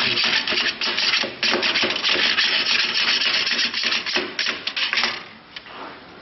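Hand file rasping back and forth in quick strokes over the welded joint of a band saw blade held in the flash-welding machine's clamps, dressing the weld seam. The filing stops about five seconds in.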